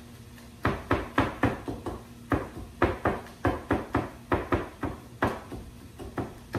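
Chef's knife mincing peeled garlic cloves on a wooden cutting board: a rapid run of sharp knocks, about three or four a second, with a short break about two seconds in.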